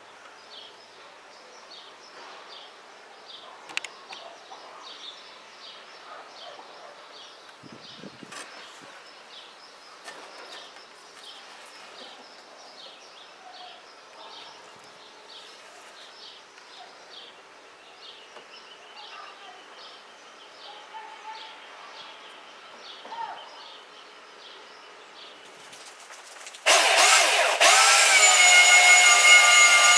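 A bird chirps over and over, about twice a second, in a quiet stretch with a few small knocks. About 27 seconds in, a woodworking machine's electric motor switches on and runs loud and steady with a high whine.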